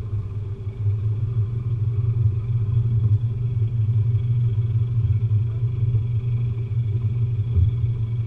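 Mercury 80 hp outboard motor running steadily while the rigid inflatable boat is under way, a constant low rumble with faint steady whining tones above it.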